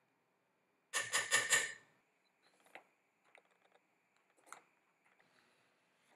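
A quick run of metal clinks about a second in, lasting about a second, as a metal measuring spoon is knocked against a stainless steel pot after tipping in turmeric. Then faint scattered clicks and scrapes of a spoon in a metal canister of salt.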